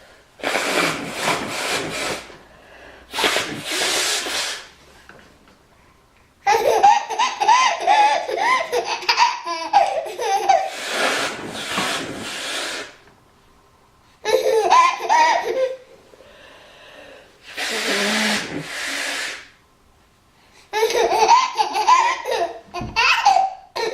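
A woman blowing her nose hard several times, each blow a long hissing honk, and between the blows a baby laughing in bursts of belly laughs.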